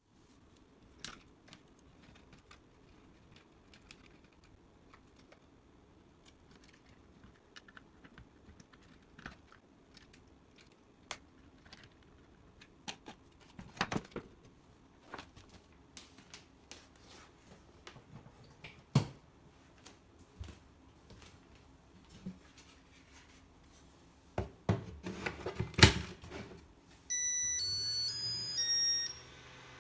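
Scattered light clicks and knocks of a Makita DC18RF battery charger's plastic housing and parts being handled, with a few louder knocks midway and a cluster of them near the end. Then the charger plays a short electronic jingle of stepped beeps, and a low hum starts underneath it.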